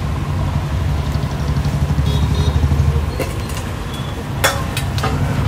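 Steady low rumble of the blower fanning the wood fire under the kadai. A few sharp metallic knocks of the slotted ladle against the iron wok come about three seconds in and again around four and a half seconds, the second one the loudest.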